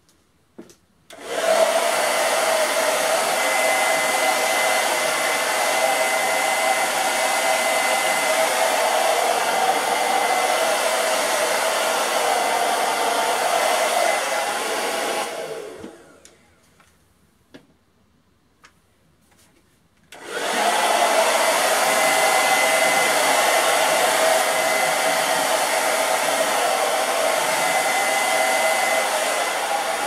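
Hand-held blow dryer running steadily, blowing poured acrylic paint across canvases. It is switched on about a second in, switched off at about fifteen seconds and winds down, then switched on again about five seconds later.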